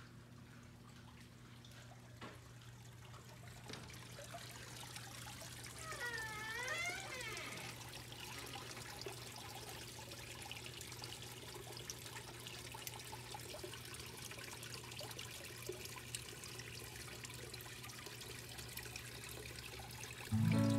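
Small garden pond waterfall trickling and splashing steadily where water spills over a stone ledge into the rock-lined pond, growing louder after a few seconds.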